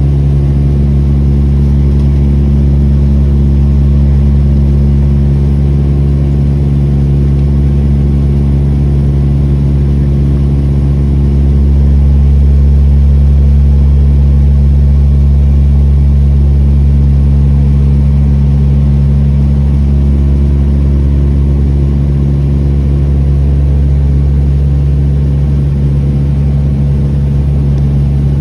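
Turboprop airliner cabin drone in flight: the propellers' steady low hum over engine noise, loud and unbroken, swelling slightly about halfway through.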